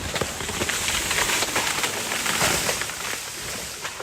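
A large hickory tree coming down: a dense crackling crash of branches and leaves snapping and smashing into the ground. It builds to its loudest about two and a half seconds in, then dies away near the end.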